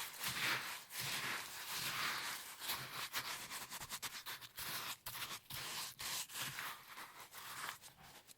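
Close-up kitchen preparation sounds: repeated gritty scraping and rubbing strokes, quickening into lighter clicks and rustles in the second half and fading at the end.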